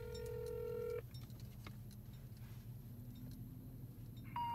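Phone call on speakerphone: a steady electronic tone about a second long, then a faint hum while the call connects. Near the end the first of the three rising intercept tones sounds, the telephone network's signal that the number is disconnected or out of service.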